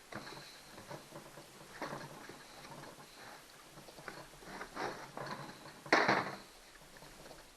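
Chainsaw parts being handled: scattered light clicks, taps and scrapes of plastic and metal, with a louder scrape about six seconds in.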